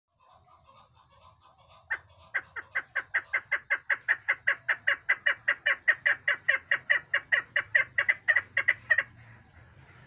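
Female chukar partridge calling: soft low clucks for about two seconds, then a fast run of loud, short chuck notes, about four a second, that stops abruptly about a second before the end.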